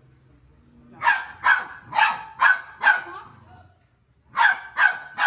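Pit bull puppy barking in two runs: five quick barks, about two a second, then a short pause and three more near the end.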